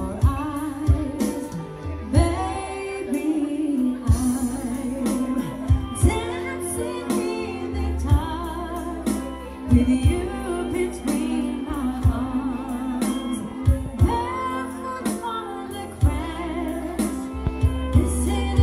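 Live band music: a woman singing into a microphone with a bowed violin, over a steady beat and bass.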